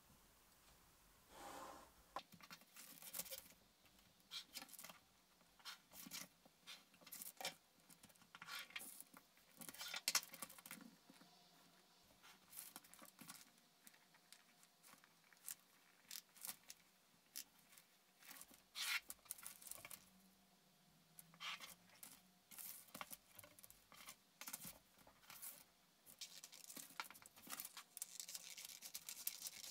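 Quiet rustling and handling of pattern paper, with scattered short taps and clicks as a plastic ruler and tools are set down and moved. Near the end, scissors start cutting through the paper, a denser, steadier rasp.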